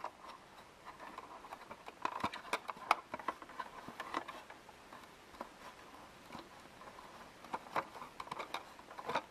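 Light, irregular clicks and taps of plastic toys being handled, with a cluster about two to three seconds in and another near the end.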